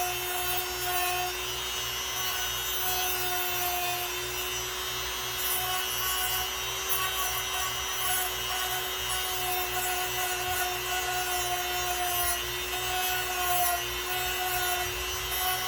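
Small power tool's grinding wheel running steadily at medium speed, with a steady motor whine and a scratchy rub as it grinds an ivory straight-razor scale.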